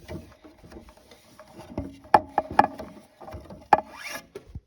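Rotor of a 3D-printed eight-port air raid siren being spun by hand: plastic clicking and rattling, with a few sharp clicks around the middle and a brief faint rising whine near the end.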